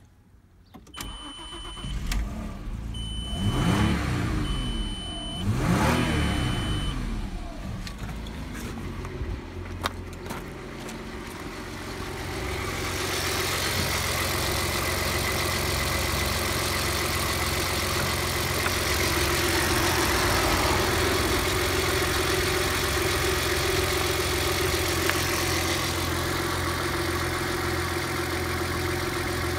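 Audi A4 B5's 2.4-litre V6 (ALF) engine starting about a second in and being blipped twice, revs rising and falling, while a warning chime beeps four times. It then settles to a steady idle, heard up close in the open engine bay from about twelve seconds on.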